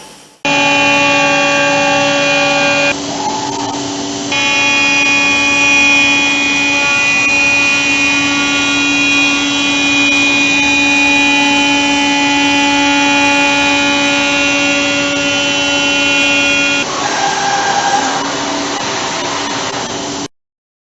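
Masterwood Project 300 CNC router running: a loud, steady machine whine made of several held tones over a rushing noise, changing in pitch and texture about 3 and 4 seconds in and again near the end, then cutting off suddenly.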